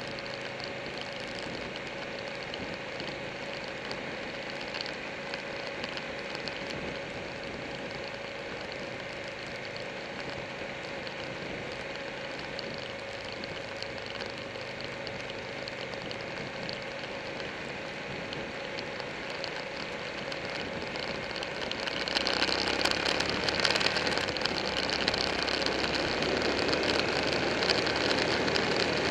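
Buell 1125R's V-twin engine running at road speed, mixed with steady wind rush on the bike-mounted camera. About two-thirds of the way in, the sound turns suddenly louder and fuller with a stronger rush of wind.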